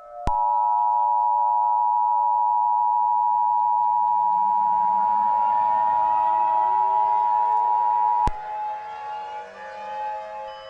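Emergency Alert System attention signal: two steady tones sounded together as one harsh alarm, held for about eight seconds and cutting off suddenly. Underneath is a quieter background drone with slowly rising tones, which carries on alone after the alarm stops.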